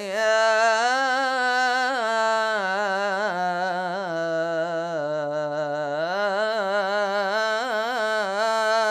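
A man's voice chanting an Islamic supplication unaccompanied, holding one long unbroken vowel. He ornaments it with small wavering turns in pitch, sinking lower about halfway through and climbing back up near the end.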